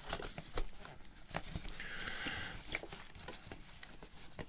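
Scattered small clicks, creaks and rustles of a two-litre plastic drink bottle being forced into a fabric bottle pouch that is too tight for it, with a short hiss about two seconds in.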